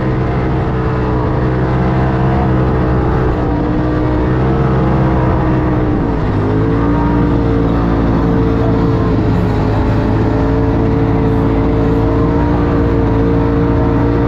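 Polaris RZR Turbo S side-by-side's turbocharged twin-cylinder engine pulling steadily under load. About six seconds in its pitch dips sharply as the throttle comes off briefly, then climbs back and holds.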